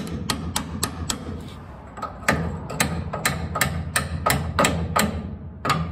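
Ball-peen hammer tapping ever so gently on a drift held against a small spacer in a New Holland 488 Haybine's wobble-box drive, to knock the spacer out. There are sharp metallic taps about four a second, a pause of about a second, then a longer run of taps.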